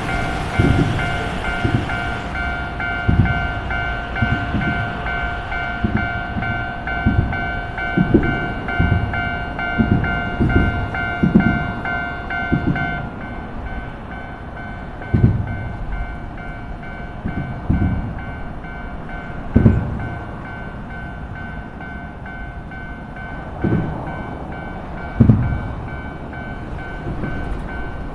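Japanese railway level-crossing warning bell ringing in a steady rapid pulse, its lowest tone dropping out about halfway through. Underneath, a low rumble with heavy thumps every few seconds.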